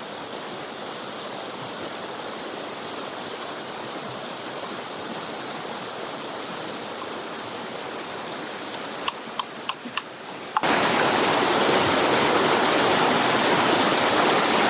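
Rushing water of a river stream and small waterfall, a steady even hiss with a few small knocks about nine seconds in. About ten and a half seconds in, the water suddenly becomes much louder and stays that way to the end.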